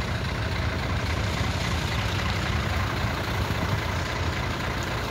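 Dump truck's diesel engine idling with a steady low rumble.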